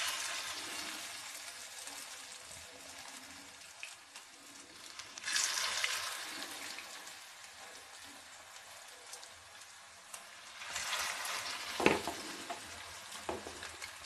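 Hot oil in a frying pan sizzling as three portions of chow pakoda mix (boiled noodles bound with egg and besan) are dropped in one after another, about five seconds apart. The hiss surges with each drop and then slowly eases. A short knock comes about twelve seconds in.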